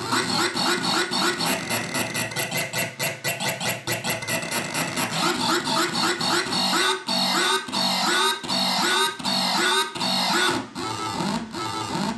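Hand-built circuit-bent analog noise synth playing glitchy modulated tones: fast stuttering pulses, changing about halfway through to a slower repeating pattern of swooping chirps, a little more than one a second, as the knobs are turned.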